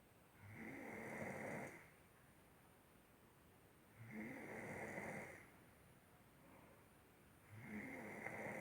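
Quiet, regular snoring: three snores about three and a half seconds apart, each lasting over a second.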